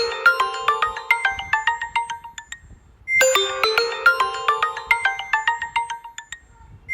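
A mobile phone ringtone: a quick melody of short, bright notes played as a loop, stopping briefly and starting over about every three and a half seconds.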